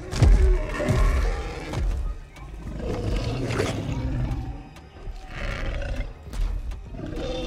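Movie dinosaur roars over dramatic orchestral film music, with heavy low thuds in the first two seconds.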